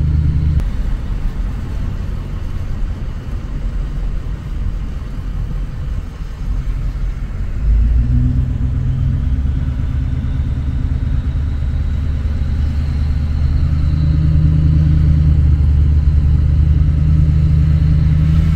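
Engine and tyre rumble of a car driving on a wet road, heard from inside the cabin. It is steady and low, and gets louder about eight seconds in and again near the end.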